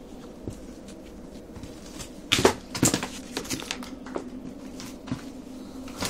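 Rustling and crunching of someone moving through weeds and rubble, with scattered light clicks and a short cluster of louder crunches about two and a half seconds in, over a faint steady hum.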